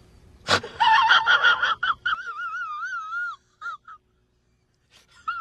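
A high-pitched, wheezy squeal whose pitch wobbles up and down several times a second, breaking off into short chirps. A brief rising squeal follows near the end, and a sharp click comes just before the squealing starts.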